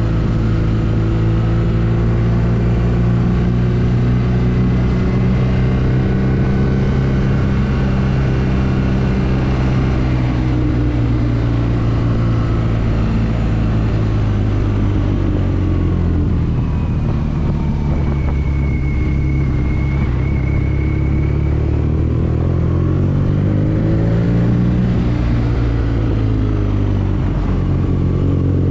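BMW R nineT's 1170 cc air/oil-cooled boxer twin running at low revs in slow town riding. The engine note drops through the middle as the bike slows, then rises again a few seconds before the end as it picks up speed.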